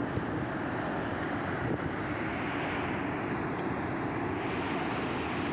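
Loud, steady roar rising from inside Mount Bromo's active volcanic crater, the sound of gas venting from the crater floor, with no change in pitch or level.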